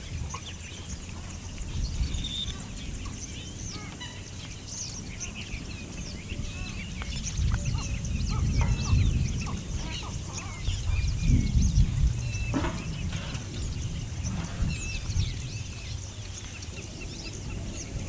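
Many birds chirping and calling in short notes throughout, over a low rumble that swells and grows louder in the middle.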